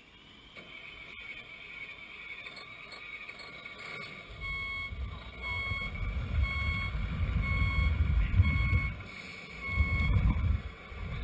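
Reversing-alarm beeps from a radio-controlled semi truck's sound module: an even series of short electronic beeps starting about four seconds in, over a steady high electric whine. A strong low rumble comes in at the same time and is the loudest sound.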